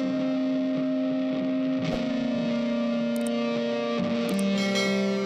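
Background music: electric guitar played through distortion, holding long notes that change pitch every couple of seconds.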